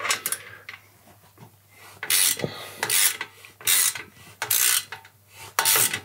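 Ratchet wrench tightening the exhaust pipe clamp bolt: a series of about five short rasping ratchet strokes, roughly one every 0.8 seconds, starting about two seconds in after some lighter rubbing of the tool.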